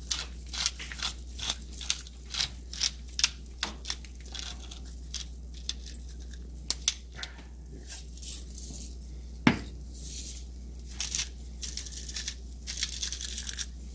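Hand spice grinder being turned to season the eggs, a run of irregular dry crackling clicks, with one sharper click about nine and a half seconds in.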